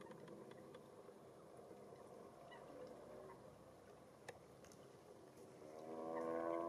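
Western swamphen calling near the end: a run of pitched notes with many overtones that swells in loudness, over faint background noise with a few small clicks.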